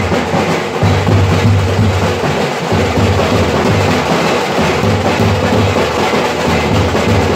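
A troupe of dhol drummers beating large double-headed drums with sticks, playing a loud, continuous festive rhythm.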